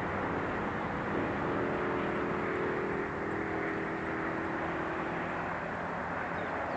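Steady outdoor city traffic noise, with an engine drone holding a few steady pitches from about one to five seconds in.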